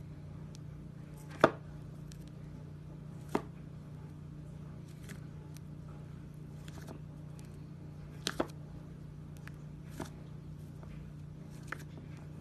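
Thick slime being squeezed and poked by hand in a glass bowl, giving a handful of sharp pops and clicks, the loudest near the start and a quick double pop later on, over a low steady hum.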